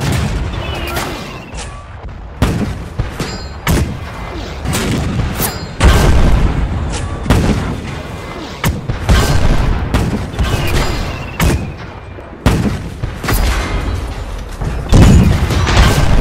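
Dubbed battle sound effects of tank cannon fire and explosions: a rapid series of about a dozen sudden blasts, each with a deep rumbling tail. The loudest come about six seconds in and near the end.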